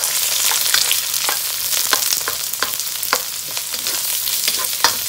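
Chopped onion sizzling in hot cooking oil in a pan, with a utensil scraping and knocking against the pan about twice a second as the onion is stirred.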